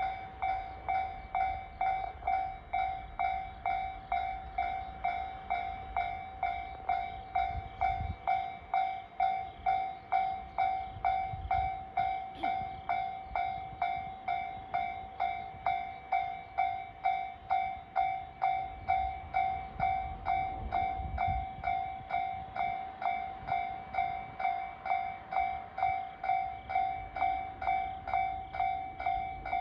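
Japanese level-crossing warning bell ringing continuously, evenly spaced electronic dings a little under two a second, signalling that the crossing is closed for an approaching or passing train. A low rumble of a freight train rises and falls beneath it.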